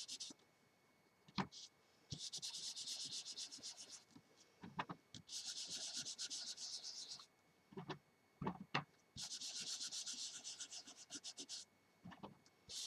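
A dried baby wipe rubbed in quick, soft strokes over cardstock and masking tape, blending ink in around the masked edges. It comes in three bouts of about two seconds each, with a few single soft knocks in the pauses between.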